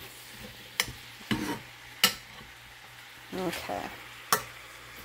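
Metal spoon stirring diced apples in a saucepan, with four sharp taps of the spoon against the pan, over a faint steady sizzle of the apples frying in butter.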